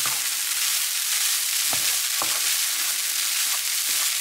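Fried rice with chicken, egg, peas and bean sprouts sizzling in a frying pan, stirred with a wooden spatula, with a few scrapes of the spatula through the rice against the pan.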